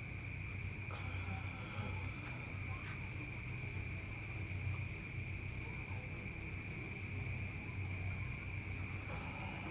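Steady, high-pitched insect drone, like a cricket chorus, over a low steady hum.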